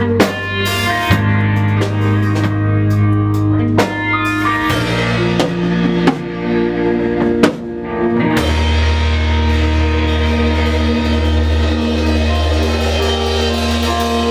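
Live band music from drum kit, guitar and bass, with sharp drum hits over changing chords, then about eight seconds in a long held chord with a deep sustained bass note.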